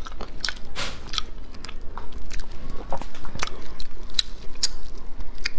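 Close-miked eating of stir-fried snails: chewing with irregular sharp clicks and wet smacks of the mouth as the meat is sucked and bitten from the shells.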